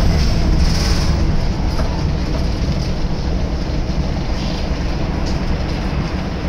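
Cabin noise of a Scania L94UB single-deck bus with a Wright Solar body on the move: the rear-mounted five-cylinder diesel and road rumble run steadily under the rattle of the body and fittings, easing a little after the first second or so.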